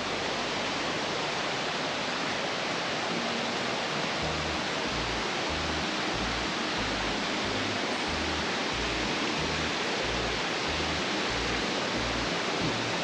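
Steady rush of flowing stream water. A low, pulsing background-music bass line comes in about four seconds in.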